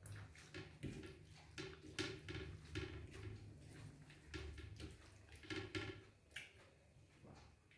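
Faint eating sounds: soft, wet clicks of chewing and of fingers mixing rice and curry on a plate, scattered irregularly over a low steady hum.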